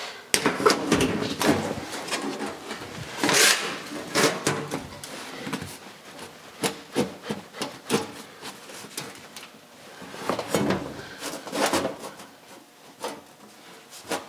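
An 18-gauge sheet metal floor pan sliding and scraping against the jaws and bed of a hand-operated sheet metal brake, with scattered sharp clanks and knocks as the panel is shifted into place. A longer, louder scrape comes about three seconds in.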